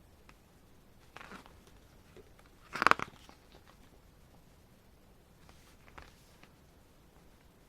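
Photo book pages being handled and turned: a soft paper rustle about a second in, a louder, brief page flip about three seconds in, then a few light clicks of paper and handling.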